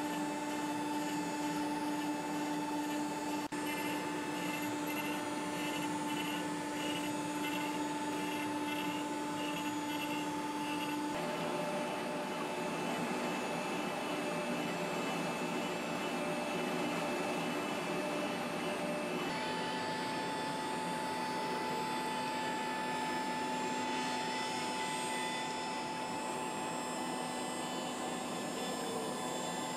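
CNC router spindle milling a circular pocket into oak: a steady machine whine with a rush of air behind it, the whine shifting in pitch about 11 seconds in and again about 19 seconds in.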